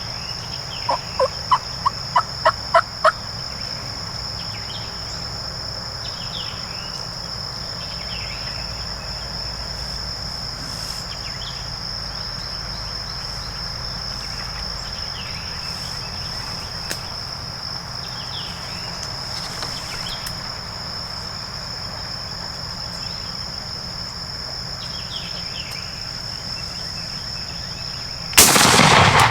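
A series of about eight wild turkey yelps, each louder than the last, over a steady high insect buzz. About a second before the end comes a single very loud shotgun blast with a trailing echo.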